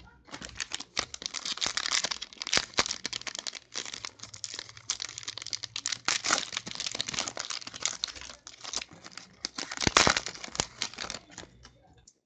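Foil wrapper of a Panini football trading-card pack crinkling and tearing as it is opened by hand, a dense run of crackles with the loudest about ten seconds in.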